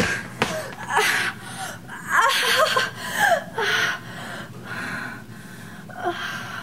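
A young woman gasping and whimpering in fright: a string of sharp, breathy gasps with short pitched cries between them, thinning out in the second half.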